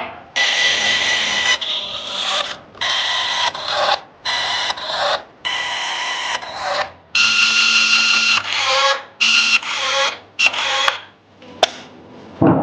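A workshop tool working in short rasping, hissing bursts, about a dozen of them, each half a second to a second and a half long, with a faint whistle in some.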